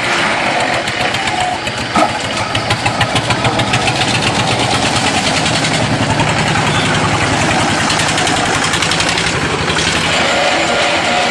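LY6-30 mobile concrete block-making machine running loudly with a rapid mechanical rattle. A sharp knock about two seconds in is followed by a pulsing rattle that settles into a steady fast rattle, which eases near the end.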